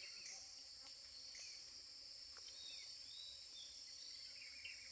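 Faint forest ambience: a steady, high-pitched insect chorus, with a few faint bird chirps.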